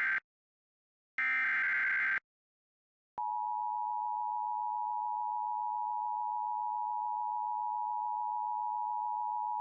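Emergency Alert System tones: a brief burst of the warbling SAME digital data signal ends, a second burst about a second long follows, and about three seconds in the EAS two-tone attention signal (853 and 960 Hz together) starts and holds steady, announcing the next severe thunderstorm warning.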